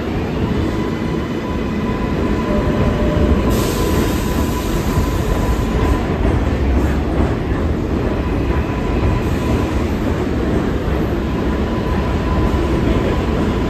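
R188 subway train pulling out and running past along the platform: a steady loud rumble of wheels and traction motors, with a thin steady tone above it and a burst of high hiss a few seconds in.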